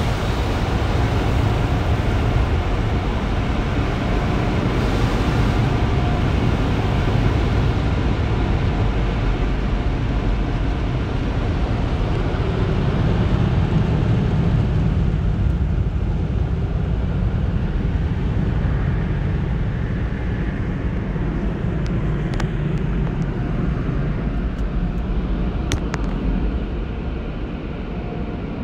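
Automatic tunnel car wash heard from inside the car: a steady hiss of water spray at first, then from about halfway the deep rushing of the drying blowers, easing off near the end.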